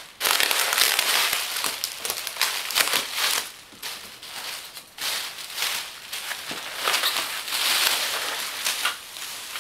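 Plastic packing material crinkling and rustling as it is handled, with a short lull about halfway through.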